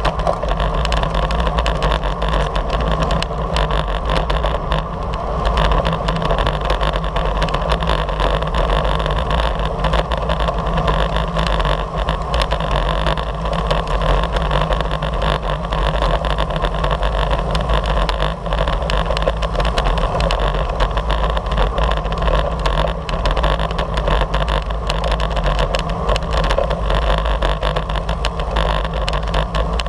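Steady wind rush and rumble on a bike-mounted camera's microphone at racing speed, mixed with the hiss of tyres on a coarse road surface.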